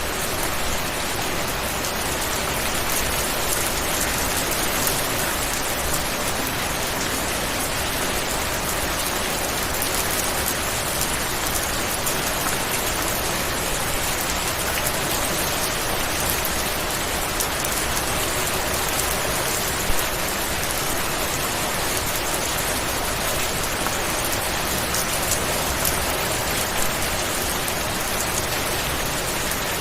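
Steady rain falling: an even hiss of many drops, with a few louder single drop hits now and then.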